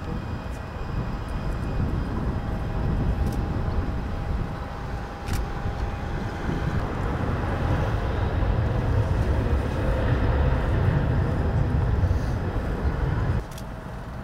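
Steady airport apron noise: a low rumble with a faint, steady high whine of aircraft turbines running. The level drops suddenly near the end.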